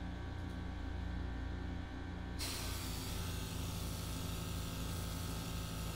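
A gravity-feed airbrush spraying red paint onto a lure. About two and a half seconds in, the trigger opens and the air and paint hiss out steadily, over the low, steady hum of the small airbrush compressor that runs throughout.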